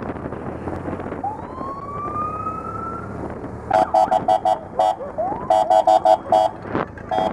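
Police motorcycle siren winding up in one rising wail, then a rapid string of short, sharp horn blasts with a quick chirp among them, over the low rumble of the engines.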